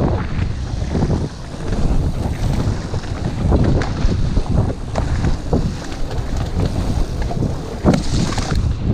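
Mountain bike descending muddy singletrack at speed: steady wind rumble on the action camera's microphone, with frequent knocks and rattles as the bike goes over bumps.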